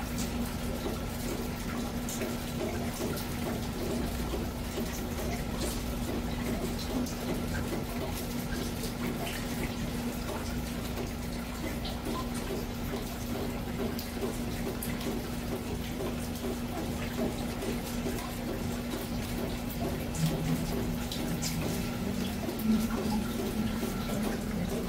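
Monsoon rain falling steadily, with many small drops ticking and splashing, over a steady low hum.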